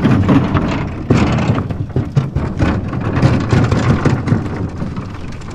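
Small metal jon boat being pulled by its bow rope up over a curb and across concrete, its hull rumbling and clattering with many irregular knocks.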